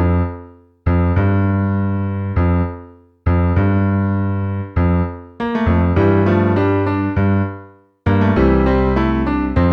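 Keyboard music in an electric-piano-like tone: full chords struck and left to die away, with short breaks between them, then a busier run of notes near the end.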